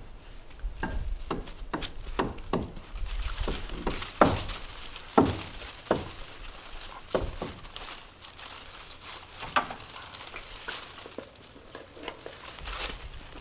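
Irregular taps, clicks and knocks of hand work on a cabin's wooden wall strips, with a few sharper knocks about four, five and nine and a half seconds in.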